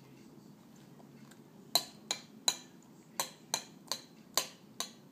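Metal spoon knocking against a white ceramic bowl: eight sharp clinks with a short ring, starting about two seconds in and spread over about three seconds.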